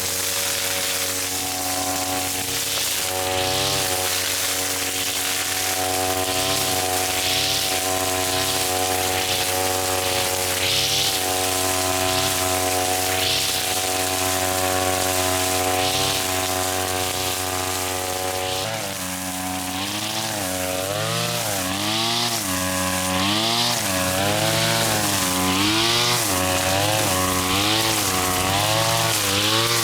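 Petrol grass cutter's small engine running steadily at high speed while cutting thick grass, with a short hiss of cut grass every two to three seconds. About two-thirds of the way through, the engine pitch starts rising and falling about once a second as the cutter is swung into the dense grass and back.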